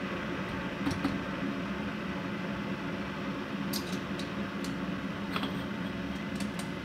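Steady low room hum with a few light clicks and taps from a hand coffee grinder being handled over the dripper.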